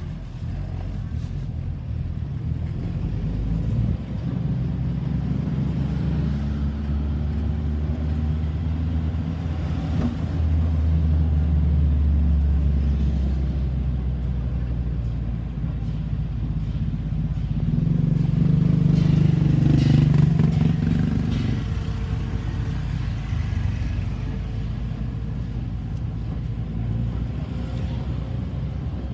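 Road traffic: vehicle engines running and passing, with a low rumble throughout. A louder engine rises and fades about two-thirds of the way through.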